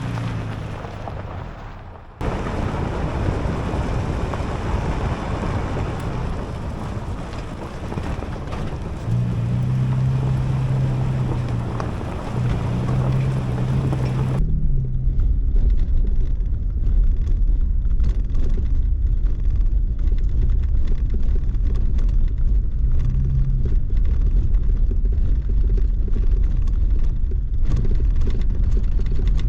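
Toyota Tacoma pickup driving a rough dirt road: steady road and tyre noise under a low engine hum that swells at times. About halfway through, a deep rumble takes over.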